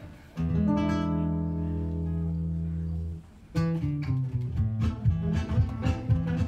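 Two acoustic guitars playing in a gypsy style. A chord is struck about half a second in and left ringing for about three seconds, then cut off. After a short pause, fast choppy rhythmic strumming begins.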